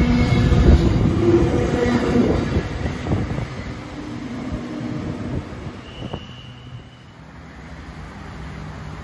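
Container freight train wagons rumbling and clacking past on the rails, fading as the end of the train moves away, with a short high squeal about six seconds in. After a dip, a quieter electric intercity train is heard slowly approaching.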